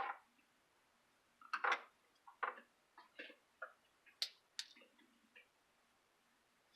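Irregular light clicks and taps of small parts and a tool being handled while probing inside a disassembled desoldering pump for debris. The clicks bunch together in the middle of the stretch, with two louder knocks about two seconds in.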